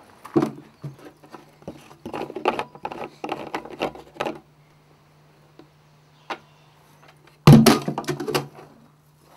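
Bursts of clattering and knocking from objects being handled, the loudest rattling burst near the end, over a steady low hum that starts just after the beginning.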